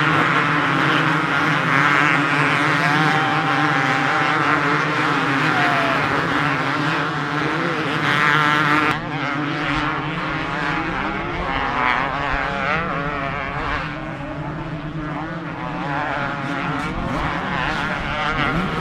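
Several two-stroke motocross bikes racing, their engines revving up and down with a buzzing, wavering pitch.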